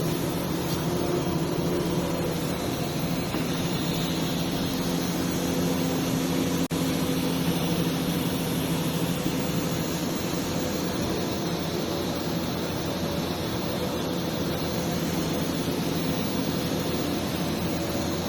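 TIG welding arc on 308L stainless steel, a steady hiss over a constant electrical hum, with one brief dropout about a third of the way in.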